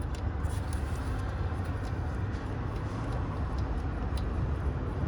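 Steady low rumble of background noise, with faint irregular ticks and clicks scattered through it.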